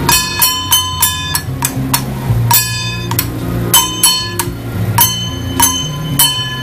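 Temple-procession percussion: a ringing metal gong or cymbal struck in a steady beat, about three strikes a second with a brief pause near the middle, over a low drone.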